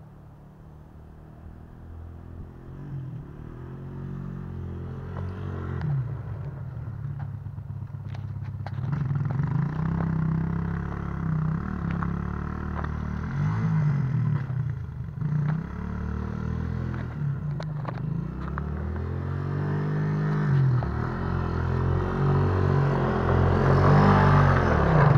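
Small quad bike's engine revving up and down over and over as it is ridden through snow, growing steadily louder as it comes closer.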